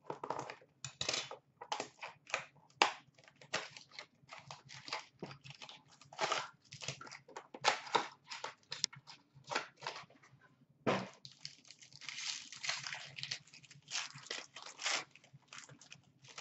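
Cardboard box and foil wrapper of an Upper Deck SP Game Used hockey card pack being cut, torn and crinkled open by hand: a quick run of crackling, crinkling rustles, with a brief pause just before the eleventh second.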